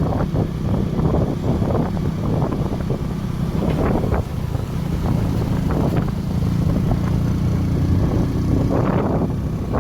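A road vehicle in motion: a steady low engine drone with wind buffeting the microphone.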